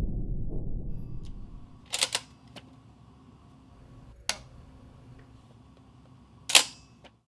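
Lewis light machine gun, Mark I, being handled, giving a few sharp metallic clacks: a double clack about two seconds in, one more near the middle, and the loudest double clack near the end. A low rumble fades away over the first second or so.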